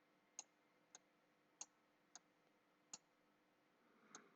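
Near silence broken by six faint, short clicks spaced unevenly, roughly every half second to a second.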